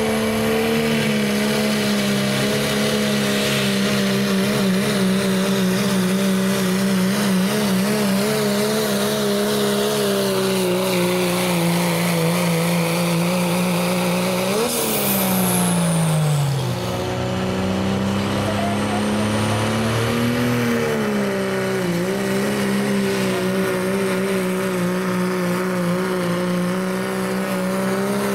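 Diesel pickup trucks in a 2.6-inch turbo class pulling a sled at full throttle, each engine held at a steady high pitch. About halfway through, the engine note falls away as the first truck lets off at the end of its pull, then a second truck's diesel comes in steady at full throttle.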